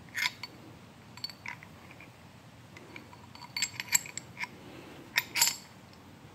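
Steel parts of a kickstart gear removal tool clinking and clicking together as they are handled, in scattered short clinks with a cluster of louder ones near the end.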